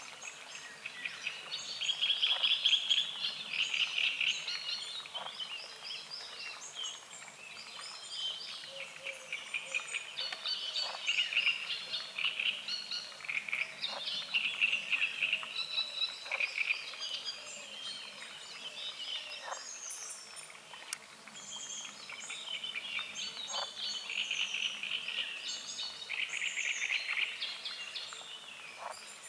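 Frogs croaking in pulsed, overlapping bursts of a second or two, mixed with several birds singing and chirping in a dawn chorus.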